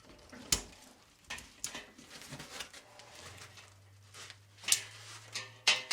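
Scattered light clicks and knocks of handling as the ratchet strap and foam cover are taken off the cement mixer's opening, with a low hum from about halfway through to near the end.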